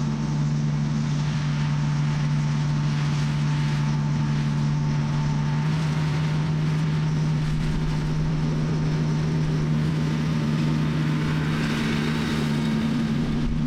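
An engine running steadily at a constant speed, giving an even low hum with a faint higher whine above it.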